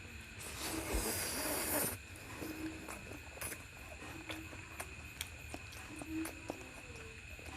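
Close-up eating sounds: wet mouth clicks and smacks of chewing, with a loud breathy hiss lasting about a second and a half near the start.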